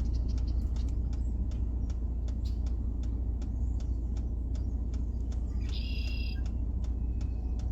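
Steady low rumble of a stopped vehicle idling, with faint regular ticking. A short bird call sounds about six seconds in.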